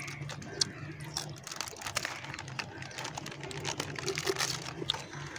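Plastic chip packets crinkling and crackling as they are handled and one is bitten open.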